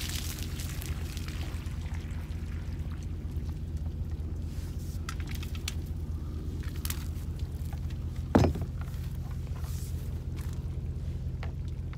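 Water gushing from the end of a raised PVC drain pipe and splashing onto the ground, fading away over the first second or two. A low steady hum runs underneath throughout, and a single loud thump comes about eight and a half seconds in.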